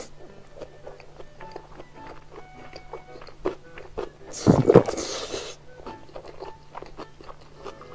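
Close-miked eating of a spoonful of rice and green pepper: wet chewing and small mouth clicks throughout, with one loud slurping suck about four and a half seconds in as pepper strips are drawn off the spoon into the mouth.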